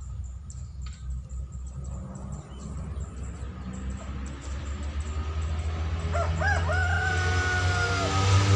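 A rooster crows once, about six seconds in: a wavering start, then one long call that falls slightly at the end. Under it a low rumble grows steadily louder through the second half.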